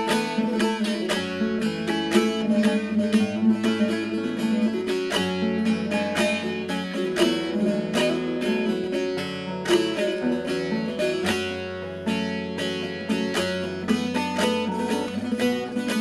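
Bağlama (Turkish long-necked saz) strummed and picked in quick, rhythmic notes, with a classical guitar playing chords and a bass line underneath: an instrumental passage of a Turkish folk song (türkü).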